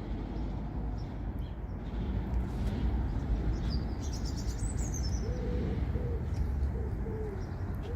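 A pigeon cooing, a short run of soft low calls in the second half, over a steady low outdoor rumble, with a brief high bird chirp about halfway through.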